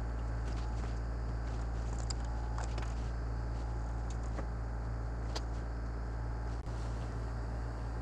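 Steady low background hum with a few faint, short ticks.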